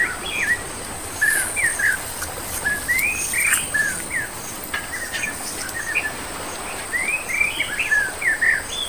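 Songbirds chirping: many short, quick rising and falling chirps from several birds, with a steady high-pitched whine behind them.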